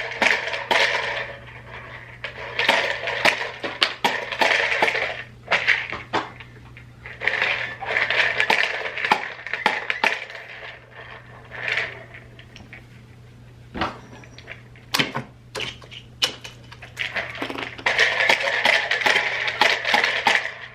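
Hands handling packages and small toys: paper and plastic rustling with many small clicks and clatters, over a faint steady electrical hum.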